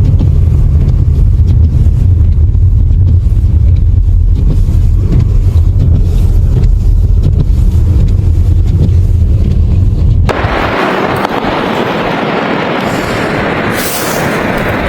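Storm wind buffeting the microphone as a loud, steady low rumble. About ten seconds in it switches abruptly to a steady hiss of wind.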